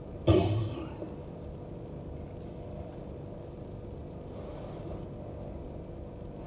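One short, loud slurp of instant cup noodles being sucked in off a fork, just under half a second in, followed by a steady low background hum.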